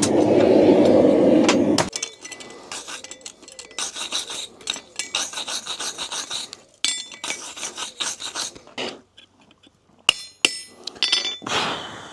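A loud rushing noise for about two seconds, then a run of short scraping, rubbing strokes as a used steel horseshoe is cleaned up on the anvil, with a few sharp metal clinks near the end.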